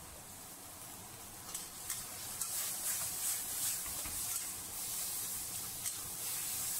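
Diced chicken sizzling in a hot wok as it is stir-fried, a metal spatula scraping and tapping against the wok. The sizzle grows louder about a second and a half in.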